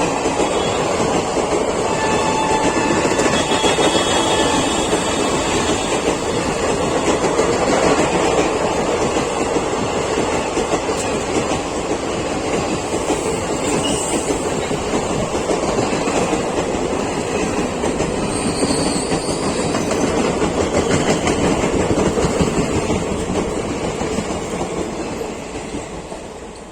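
ICF passenger coaches of an express train, behind a WAP-7 electric locomotive, rushing past at speed, wheels clattering over the rail joints. A faint horn tone sounds about two to five seconds in, and the noise fades near the end as the train moves away.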